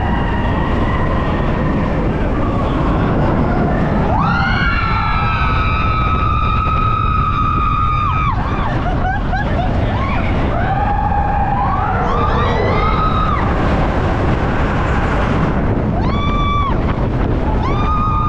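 Expedition Everest's Vekoma coaster train rumbles along the track under heavy wind noise on the microphone, while riders scream. A long held scream starts about four seconds in, shorter screams and shouts follow, and brief high screams come near the end.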